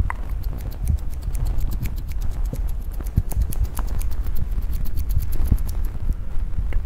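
Small scissors snipping rapidly in the air close to the microphone: a fast, even run of crisp clicks that stops near the end, over a low rumble.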